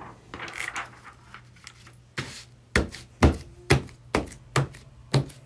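A hand patting and wiping across the sticky surface of a Cricut StrongGrip cutting mat to lift off leftover vinyl bits. There are softer rubbing sounds at first; about halfway in, short sticky slaps begin, about two a second.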